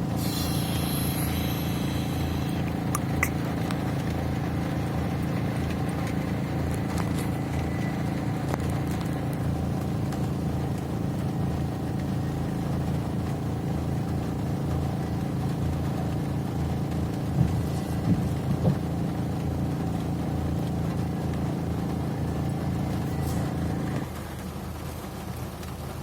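Vehicle engine running at a steady pace with a constant drone, with a few light knocks partway through. Near the end the engine note drops and gets quieter.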